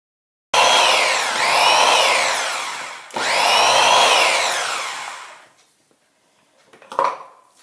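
Moulinex electric blender running in two bursts while puréeing the cooked onion soup, its motor pitch dipping and recovering under the load. The motor winds down, and a short click follows near the end.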